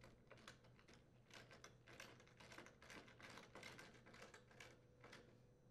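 Faint, irregular clicks and scrapes of a hand screwdriver driving a screw through a metal dishwasher mounting bracket, stopping near the end.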